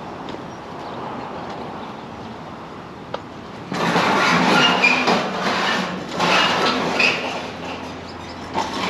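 Wind noise, then about four seconds in a loud rustling and scraping as a plastic roofing tarp is dragged across the roof and flaps in the wind.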